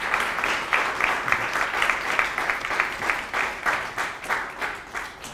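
Audience applauding: many hands clapping densely, thinning out and fading near the end.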